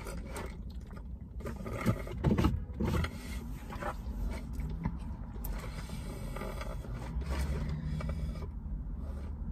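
Steady low hum inside a parked car, with a few soft sips and handling sounds from a paper fountain-drink cup about two to three seconds in.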